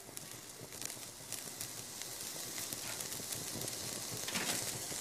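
Rice-and-herb mahshi stuffing cooking in broth in a pot on the stove, sizzling faintly with scattered small crackles and pops.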